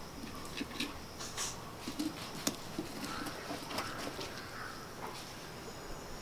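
Steady high-pitched chirring of insects such as crickets, with scattered light taps and clicks through the first five seconds.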